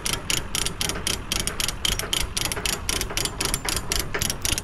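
Ratchet chain load binder being cranked by hand, its pawl clicking quickly and evenly as the handle is worked on the chain.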